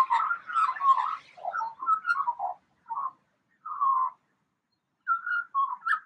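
Magpie making mimicked calls: a quick run of short wavering phrases that rise and fall in pitch, then a few separate bursts with pauses between them.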